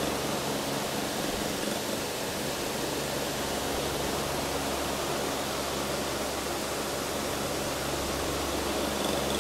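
Steady, even hiss with a low electrical hum beneath it, unchanging throughout.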